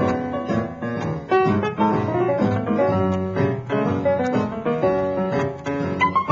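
Background music led by piano, with a bass line under it.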